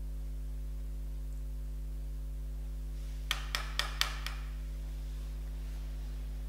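Five light clicks in quick succession about three to four seconds in, from a makeup brush and powder compact being handled, over a steady electrical hum.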